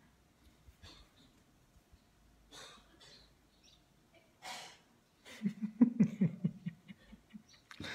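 Faint breaths, then about five seconds in a person's voice in a quick run of short pitched bursts.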